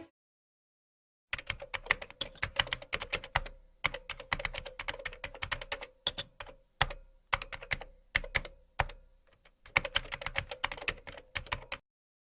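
Typing on a keyboard, rapid clicking keystrokes in bursts with short pauses, over a faint steady hum. It starts about a second in and stops abruptly shortly before the end.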